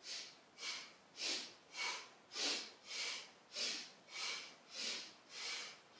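A woman's short, quick breaths, about ten in an even rhythm of under two a second, each one paced to a side-to-side standing yoga twist: inhaling to one side, exhaling to the other.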